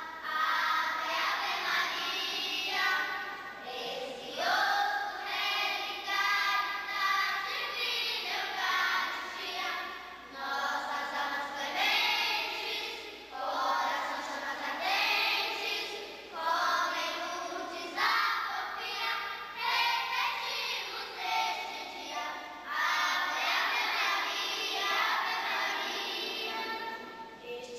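A group of young girls singing a hymn together, in sung phrases of a couple of seconds each with short breaks between them.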